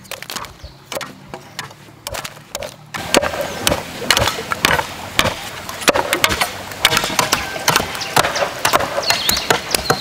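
Wooden stakes being chopped to points with a blade: a run of sharp, irregular chops, louder from about three seconds in.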